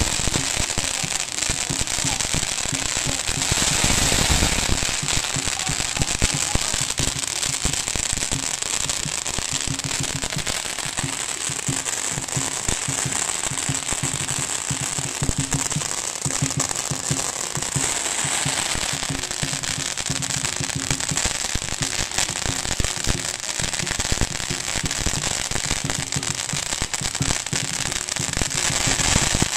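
Strings of Chinese firecrackers going off in a continuous, rapid crackle of bangs, with louder bursts about four seconds in and again past the middle.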